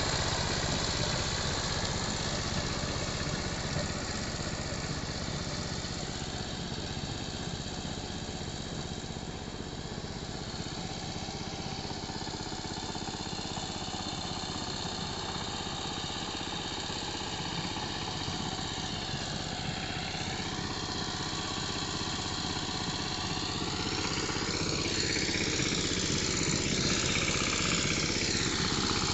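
Changchai 12 HP single-cylinder diesel engine of a Dongfeng walking power tiller running steadily while tilling a flooded paddy field. It grows fainter as the tiller works away across the field, then louder again as it comes back.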